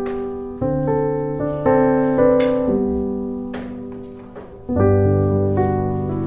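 Background piano music: slow chords that are struck and left to ring and fade, with a fuller, louder chord coming in near the end.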